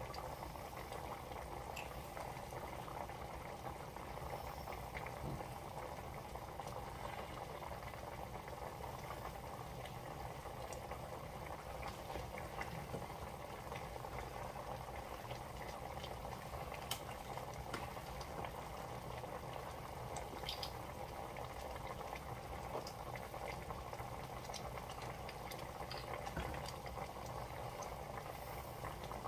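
Sauce boiling steadily in a stainless steel sauté pan, with scattered small pops of bursting bubbles, as it reduces.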